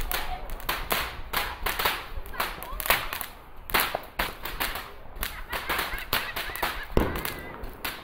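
Fireworks display going off: a dense run of sharp crackling reports, several a second, with a heavier boom about seven seconds in.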